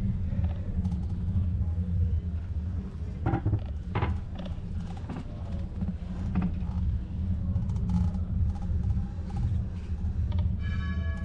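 Low, steady rumble of wind on the microphone during a bicycle ride, with scattered clicks and creaks; a church bell begins ringing near the end.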